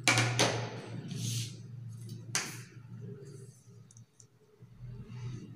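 Brown pattern paper and drafting tools being handled on a table: a rustle at the start, a brief swish about a second in, and a sharp crinkle or tap a little after two seconds, over a low steady hum.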